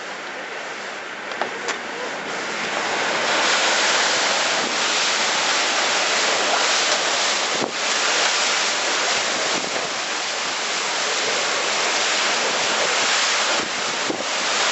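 Typhoon storm noise: a steady, loud rushing of wind and driving rain, swelling about two to three seconds in and then holding.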